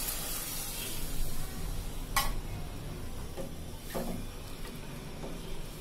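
Boiled chicken stock poured into a hot metal pot of fried-down chicken curry, the sizzle dying away over the first second. Then a wooden spatula stirs and knocks against the pot, a sharp knock about two seconds in and a few lighter ones after.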